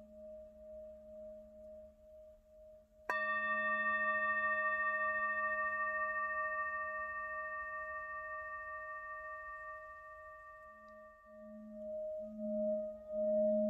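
A meditation bell struck once about three seconds in, ringing with several high overtones that slowly fade. Under it runs a steady, wavering low drone that swells again near the end.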